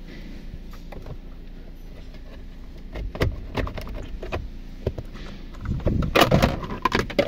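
Scattered clicks and knocks of hand tools and plastic trim as screws are worked out of a car's steering-column cover, ending in a burst of clattering and rattling over the last second and a half.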